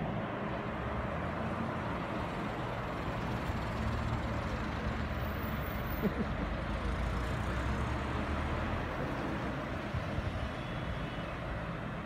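Road traffic: cars driving past close by and a city bus approaching, a steady engine and tyre rumble that grows a little louder in the middle as a car passes near.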